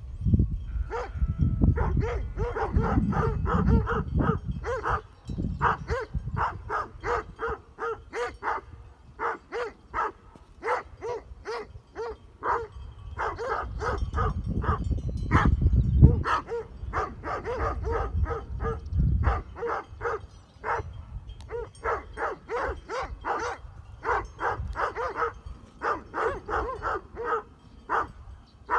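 Great Pyrenees livestock guardian dog barking repeatedly, about two or three barks a second with only brief pauses: a warning bark at a person close to its flock of sheep.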